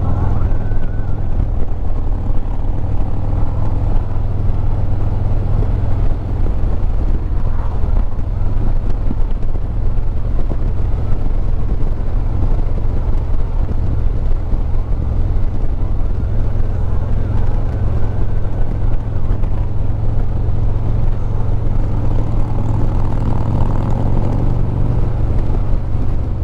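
Harley-Davidson touring motorcycle's V-twin engine running steadily at cruising speed, with wind and road noise, picked up by a camera on the handlebars.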